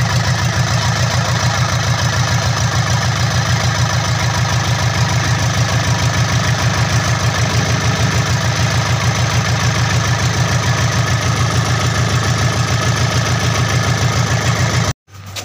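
Diesel truck engine idling steadily with an even pulsing beat. It cuts off abruptly near the end.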